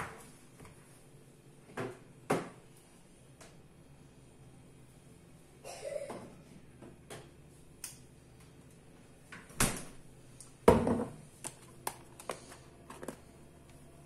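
Irregular knocks and clunks of kitchen work, about a dozen separate strokes, the loudest about ten and eleven seconds in.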